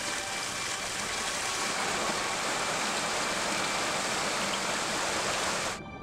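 Mountain stream rushing over rocks in a small cascade: a steady hiss of water that cuts off abruptly near the end.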